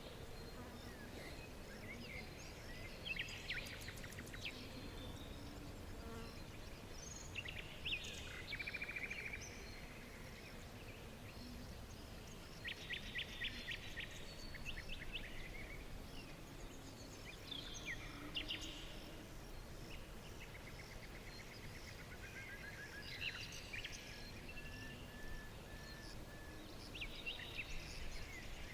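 Songbirds singing: short chirping and trilled phrases every few seconds over a steady low background hiss.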